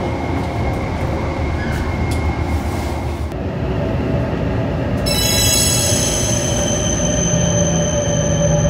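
Hokuriku Shinkansen train running, heard inside the car by the doors as it slows into a station: a dense rumble, with steady whining tones joining about five seconds in.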